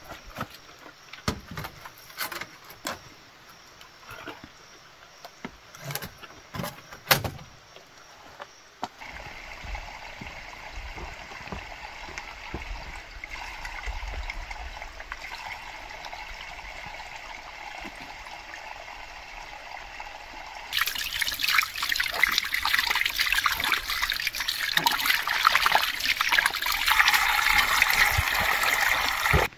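Water running out of a cut bamboo pipe and splashing onto muddy ground. It starts as a steady trickle about nine seconds in and turns into heavier splashing about twenty seconds in. A few sharp knocks come before the water starts.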